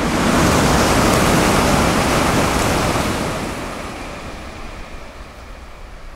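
N700-series Shinkansen passing through the station at high speed in heavy rain. A loud rush of air and spray off the wet track swells at once, holds for about three seconds, then fades away as the train recedes.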